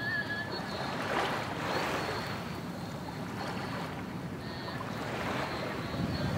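Shallow water washing and lapping at the shore, with wind on the microphone; the wash swells about a second in and again near the end.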